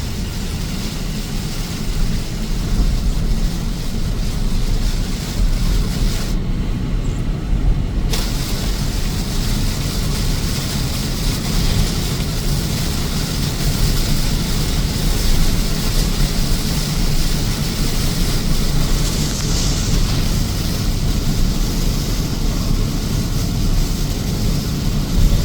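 A car driving: steady low rumble of engine and road noise from inside the cabin, with a hiss of tyres on a wet road. The hiss drops away for about two seconds, roughly six seconds in.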